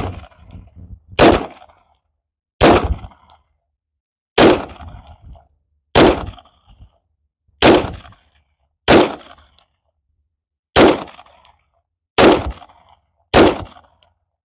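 Canik SFX Rival 9mm pistol firing about ten single shots at a slow, steady pace, roughly one every one and a half seconds. Each shot trails off in a short echo.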